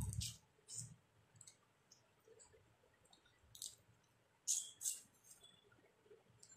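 Faint hand-eating sounds: fingers mixing rice on a plate and eating, with a few short clicks. The loudest are two clicks close together about four and a half seconds in.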